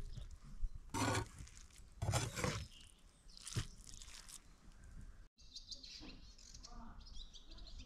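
A cleaver scraping hand-chopped minced meat off a wooden chopping block: a few short scrapes and a knock. From about halfway, birds chirping.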